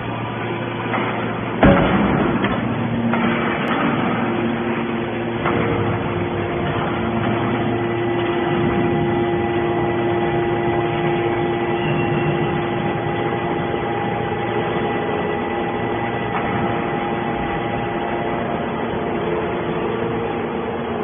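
Hydraulic baler machine running: a steady motor and pump hum, with a sharp bang about two seconds in. A steady whine comes in about five seconds in and holds until near the end.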